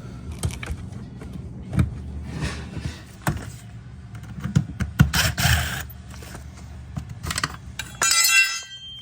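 Clicks, knocks and scraping of tools and metal and plastic parts being handled as the wash motor is taken off a dishwasher. There is a brief high-pitched whine about eight seconds in.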